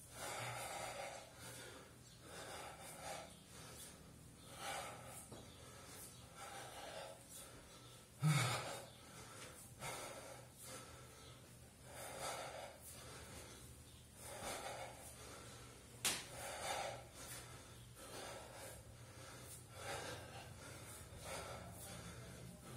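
A man breathing heavily and rhythmically while doing repeated 24 kg kettlebell cleans, a loud breath roughly every one and a half to two seconds. A single thump comes about eight seconds in and a sharp click about sixteen seconds in.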